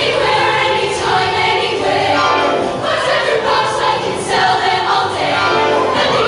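Show choir singing as a group, with musical accompaniment.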